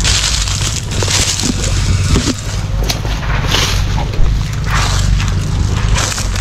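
Dry brush and leaf litter crunching and crackling underfoot as someone pushes through forest undergrowth, over the steady low drone of an excavator's diesel engine.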